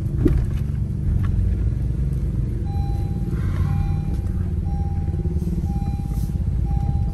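Car running slowly on a rough lane, a steady low rumble heard from inside the cabin, with a brief knock just after the start. From about three seconds in, a high steady beep repeats roughly once a second.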